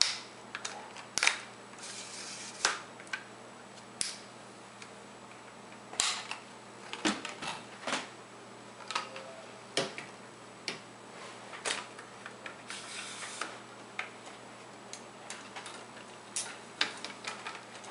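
Tripod legs being extended by hand: the plastic lever-lock leg clamps snap open and shut and the metal leg sections clack, a run of irregular clicks with a couple of brief sliding rasps.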